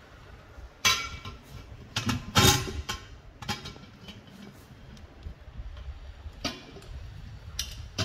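Brass pressure cooker's lid being fitted onto its body: several sharp metal clanks and knocks, loudest about two and a half seconds in, then lighter clicks near the end as the lid and body handles are brought together.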